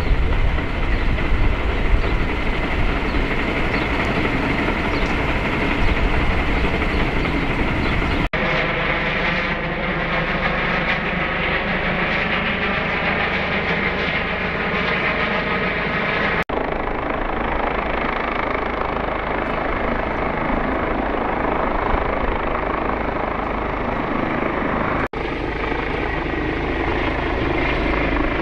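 Police Airbus H145 helicopter flying overhead: a steady, continuous rotor and turbine drone.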